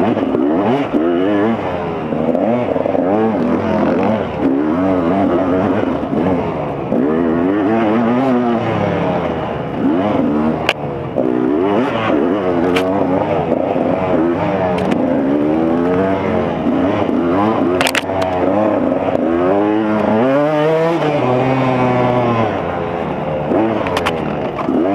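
2015 KTM 200 XC-W two-stroke engine revving hard, its pitch climbing and dropping every second or two as the throttle is worked, with a few sharp knocks along the way.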